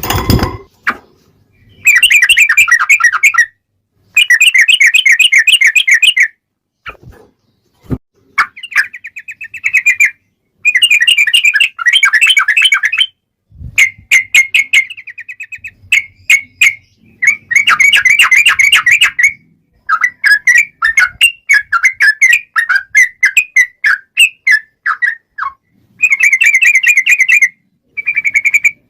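Sooty-headed bulbul singing in a fighting mood, in long, rapid rolling trills of one to two seconds each, repeated with short gaps. A few sharp knocks come in between the phrases.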